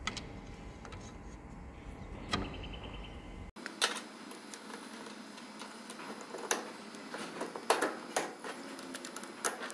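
Light metallic clicks and knocks of small tooling parts being handled and fitted, as honing stones and guides are set into a Sunnen hone head. The knocks are irregular and come more often in the second half.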